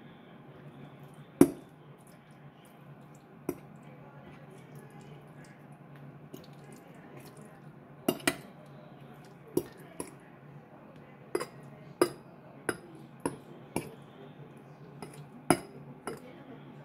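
Metal fork clinking and scraping against a ceramic plate while mixing a soft zucchini and cheese dip. About a dozen sharp, irregular taps come mostly in the second half, over a low steady hum.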